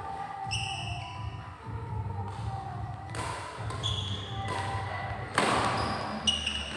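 Badminton rally: sharp racket strikes on the shuttlecock, the loudest about five and a half seconds in, and short high squeaks of sports shoes on the court mat.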